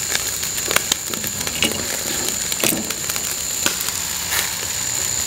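Bandicoot rats grilling over a fire, a steady sizzling hiss broken by sharp crackles and pops every second or so.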